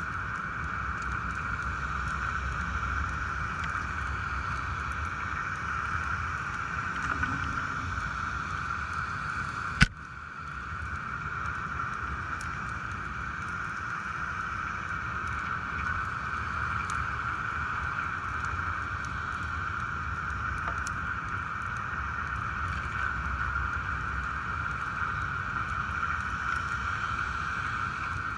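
Steady hum of a fishing boat's engine, a continuous low rumble with a held mid-pitched whine. One sharp knock cuts through about ten seconds in.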